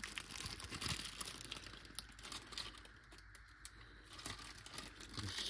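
Zip-top plastic bag of marinade crinkling and crackling in the hands as it is handled and the air pressed out of it, in scattered small crackles and taps, busiest in the first couple of seconds.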